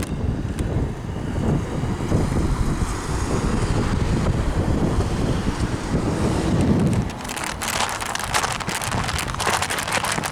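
Passing train's steady low rumble, heard through heavy wind buffeting on the microphone, with a stretch of crackling in the last few seconds.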